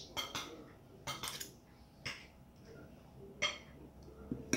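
Knife and fork clinking and scraping against a plate while cutting food, in about five short sharp clusters at irregular intervals.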